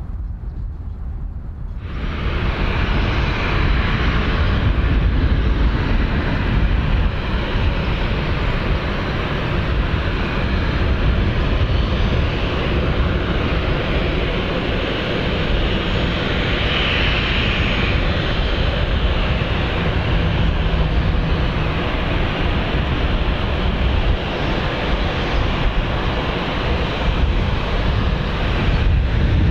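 Jet engine noise from a taxiing Boeing 737-700 BBJ, whose CFM56-7 turbofans are at low taxi power: a steady rumble and hiss. The sound jumps suddenly louder about two seconds in and then holds steady.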